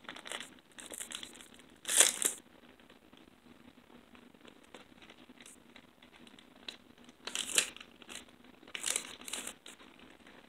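Foil trading-card booster pack wrapper crinkling in several short bursts, loudest about two seconds in, with two more bursts near the end.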